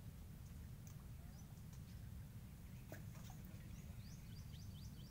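Faint high chirping of a small animal, with a quick run of chirps, about five a second, starting near the end, over a steady low rumble.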